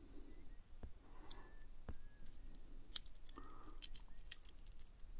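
Faint scattered metallic clicks and light rattling of fishing tackle being handled as a caught perch is unhooked from the lure, with two dull knocks about a second apart.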